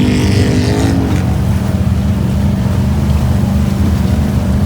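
ATV engine running steadily at an even pitch, with a second wavering tone that ends about a second in.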